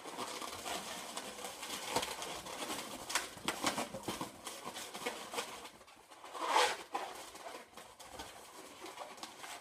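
Latex 350 modelling balloon being handled and twisted: the rubber rubs and squeaks in short bursts, with one longer, louder squeak about six and a half seconds in.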